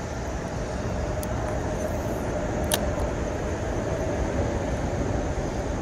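Steady rush of flowing creek water mixed with traffic hum from the highway bridge overhead, with a single sharp click about two and a half seconds in.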